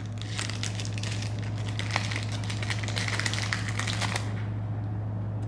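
Chewing a crunchy snack close to the microphone: a quick run of small crackling crunches that stops about four seconds in.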